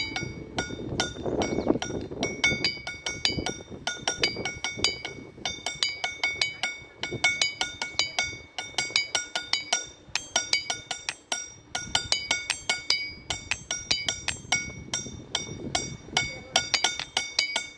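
Ringing 'musical stones' struck with a small hand-held stone: a rapid series of sharp, glassy clinks, several a second, each ringing briefly at a few fixed high pitches.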